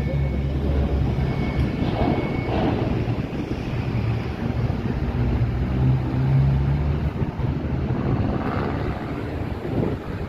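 A large vehicle's engine running close by with a steady low hum, a heavy bus or truck on the move.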